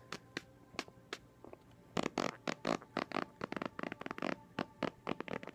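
Quaker parrot making its sputtering raspberry noise: a few isolated clicks, then from about two seconds in a rapid run of short sharp pops, about four or five a second.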